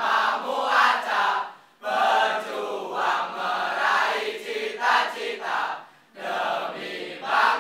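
A crowd of young people singing and chanting together, many voices at once, dropping out briefly twice.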